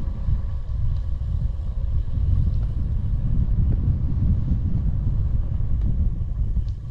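Wind buffeting the microphone while cycling, a loud low rumble that surges and fades, easing slightly near the end.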